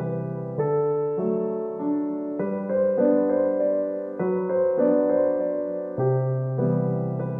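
Gentle solo piano background music, its notes and chords changing about every half second over a held bass.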